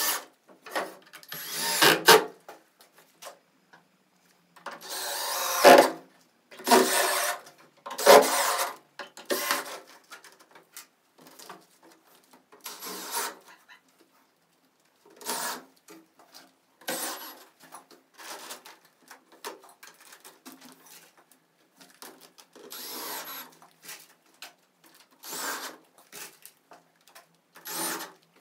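Woodworking tool noises on wood, in a string of short separate bursts about a second long each with brief silences between, the loudest a few seconds in.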